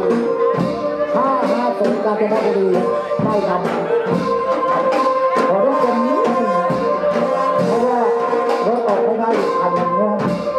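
Band music with brass instruments playing a melody over drums keeping a steady beat.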